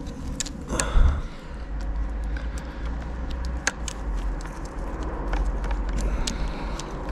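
Small metallic clicks and taps of a pit bike's gear shifter and tools being handled while the shifter is fitted to its shaft, with one louder thump about a second in, over a steady low rumble.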